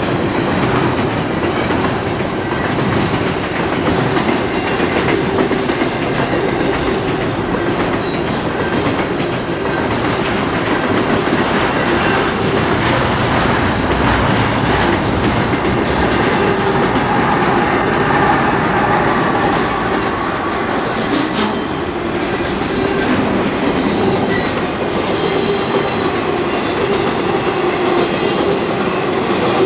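Freight train rolling past: a steady, continuous rumble and clatter of wheels on rail.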